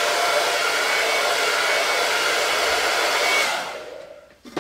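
Hand-held hot-air dryer blowing steadily with a faint whine, drying chalk paste on a painted wood cutout; it is switched off about three and a half seconds in and winds down.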